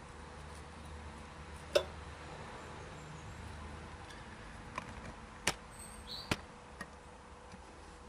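Several short, sharp metal clicks and knocks, the loudest nearly two seconds in and a cluster of smaller ones a few seconds later, from the chain and tools being handled while a new connecting link is fitted to a motorcycle primary chain.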